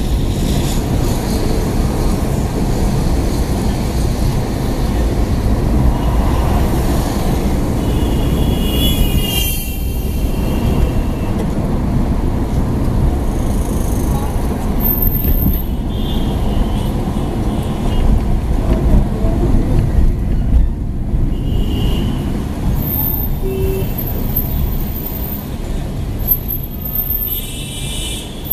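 Traffic noise heard from inside a moving car: a steady low rumble of engine and tyres on the road. Other vehicles' horns honk briefly several times, around nine seconds in and again near the end.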